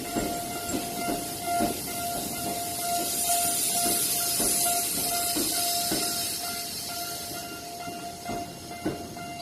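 Level-crossing warning bell ringing in a repeating pitched ding while a Ginza Line subway train rolls over the crossing, its wheels clacking irregularly over the rail joints. A high hiss swells in the middle.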